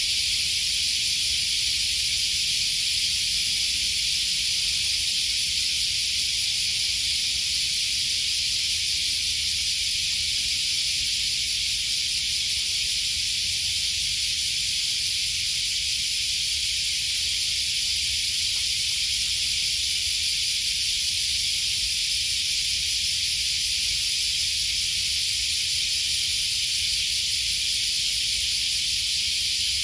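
Large brown cicadas (aburazemi) calling in a chorus: one steady, unbroken sizzling buzz with no pulsing, cutting in suddenly at the start.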